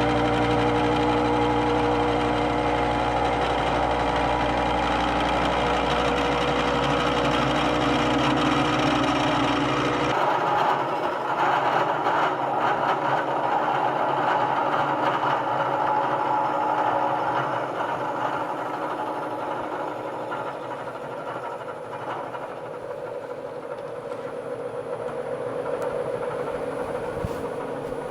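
Bridgeport milling machine running, its carbide cutter taking a skim cut across a metal plate to mill out deep gouges. About ten seconds in, the steady low hum drops away abruptly and a rougher cutting noise carries on, easing off and then building again near the end.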